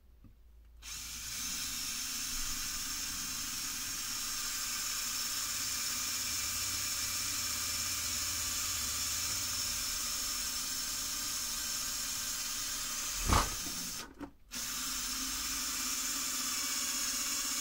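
Electric drill running steadily as it drills a hole, a smooth hissing whir. It is broken by a short knock just after 13 seconds, stops for about half a second, then runs on.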